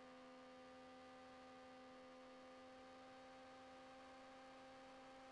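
Near silence: a faint steady hum of a few held tones over light hiss.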